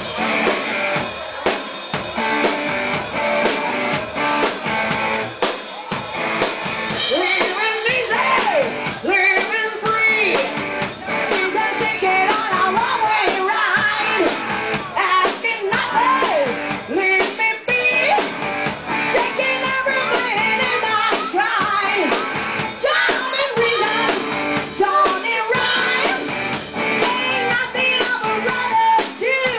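A live rock band playing in a bar, with a singer over electric guitar and drum kit.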